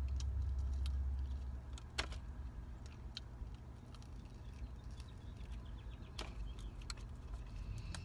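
Low steady hum of a parked car idling, a little stronger in the first second and a half, with a few faint clicks and ticks from eating and handling food.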